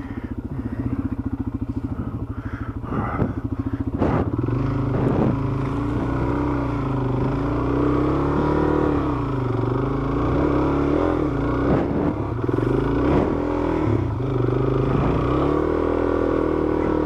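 Dual-sport motorcycle engine chugging at low revs for the first few seconds, then revved up and down repeatedly as the rider works the throttle on a slick, muddy climb.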